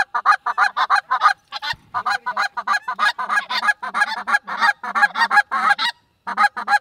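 Flock of lesser Canada geese honking overhead: a rapid string of short honks, about five a second, with a brief pause about six seconds in.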